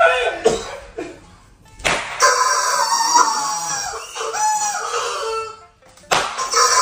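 Rubber screaming-chicken squeeze toy squawking: a short falling squawk at the start, then a long wavering squeal after a sharp smack about two seconds in, and another squeal starting near the end.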